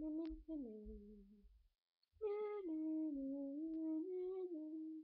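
A girl humming a wordless tune in two phrases, a short one, then a longer one after a brief pause, with held notes that step up and down.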